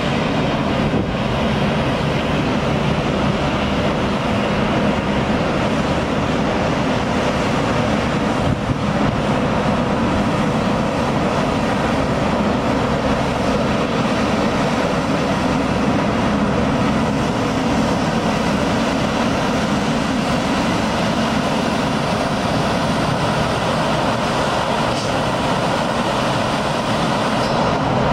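Vacuum street-sweeper truck at work, a loud steady mechanical noise of its engine and suction running without a break.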